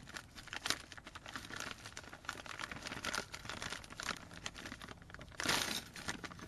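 Packaging of a universal door lock actuator kit crinkling and rustling as the parts are taken out, in irregular crackles, with a louder burst of rustling about five and a half seconds in.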